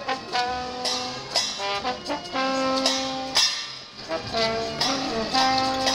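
Trombone playing a lively tune in held notes, with a marching drum and cymbal beating time.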